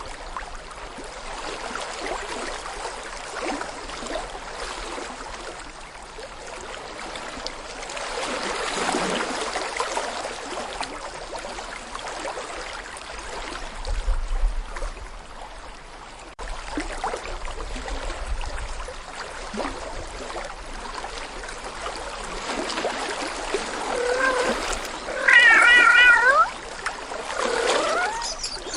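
A steady watery rushing noise, then a cat meowing several times over the last few seconds, the loudest a long wavering meow.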